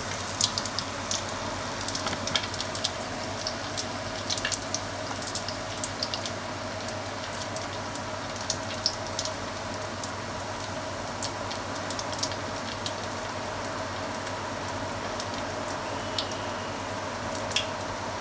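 Hot deep-frying oil sizzling steadily, crackling with frequent irregular sharp pops.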